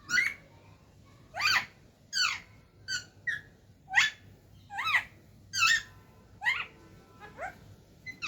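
A pet parrot calling: about a dozen short, shrill calls, each sweeping up in pitch, a little more than one a second, the last few quieter.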